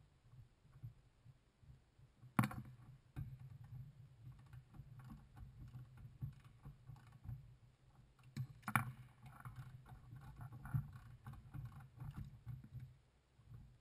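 Hand-tool work on an exhaust manifold clamped in a bench vise while its oxygen sensors are loosened and removed. There are two sharp metal knocks, one about two seconds in and one about nine seconds in, and light metallic clicks and rattles in between and after, over a steady low rumble.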